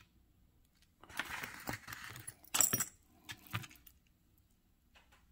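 Beaded necklace and its metal toggle clasp and rings jingling and clinking as it is handled, with the sharpest clink about two and a half seconds in.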